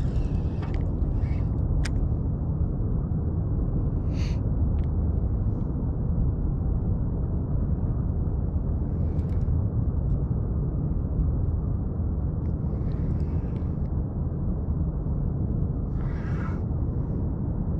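Steady low rumble of wind buffeting the camera microphone, with a few faint brief higher sounds about four, nine, thirteen and sixteen seconds in.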